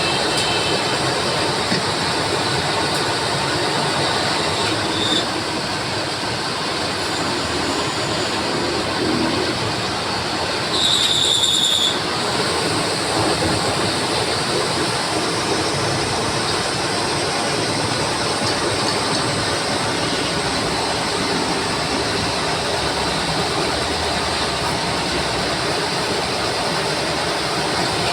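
Lathe running and cutting a metal flange: a steady, loud machining noise, with a short high-pitched squeal near the middle.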